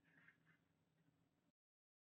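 Near silence: a pause between narrated slides, with digital silence near the end.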